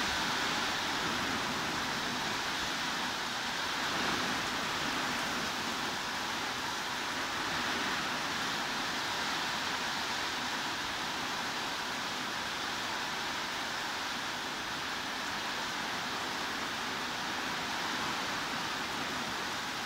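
Heavy rain falling steadily, an even hiss with no separate drops or breaks standing out.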